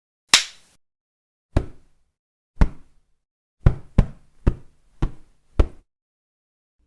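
Punch impact sound effects: eight separate sharp hits, the first three about a second apart, then five in quicker succession, each dying away quickly.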